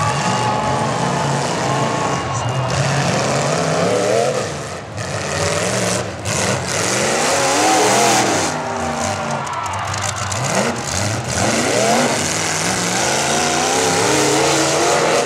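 Several demolition derby cars' engines revving hard at once, their pitches rising and falling over one another as the cars push and spin in the dirt.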